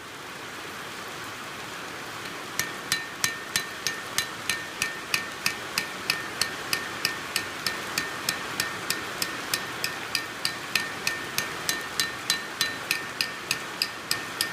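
Hammer tapping the cutting piece of livestock ear marking pliers set on an anvil: a steady run of light metallic strikes, about three a second, each with a short ring, starting about two and a half seconds in. The taps close up the cutting edge where the pliers were cutting on one side only.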